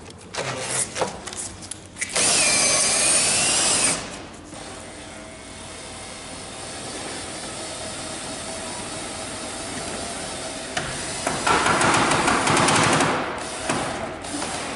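Cordless drill on a crank bar turning the pop-top caravan's roof winder, lowering the roof. There are a few knocks as the bar goes in, then a loud whining spell about two seconds in, a quieter steady run, and a louder spell again near the end.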